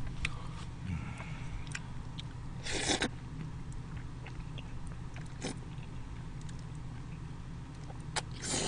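Jjajangmyeon noodles being slurped and chewed close to a microphone: a short, sharp slurp about three seconds in and another near the end, with small wet mouth clicks and chewing between.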